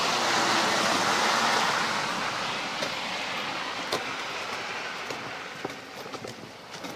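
A road vehicle driving past, its tyre and road noise swelling in the first couple of seconds and then fading away.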